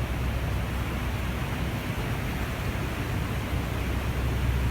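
New Holland L220 skid steer's diesel engine running steadily, a constant low hum under a broad noisy din.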